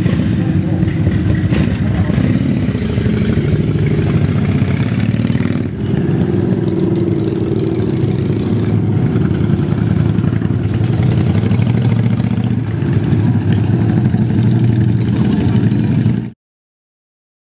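Motorcycle engine running close by at a steady, low idle, its pace shifting slightly a couple of times. The sound cuts off suddenly near the end.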